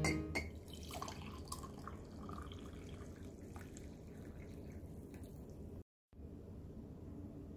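Hot coffee poured from a drip coffee maker's glass carafe into a glass mug: a faint trickle and splash of liquid, with small gurgling blips for the first few seconds before it quiets down.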